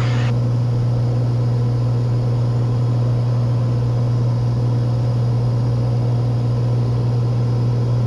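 Cessna 182 Skylane's piston engine and propeller droning steadily in flight, heard inside the cabin as a loud, unchanging low hum. A short hiss cuts off just after the start.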